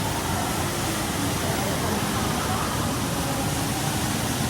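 Jewel Changi Airport's Rain Vortex indoor waterfall pouring: a steady, even rush of falling water, just after the flow has started.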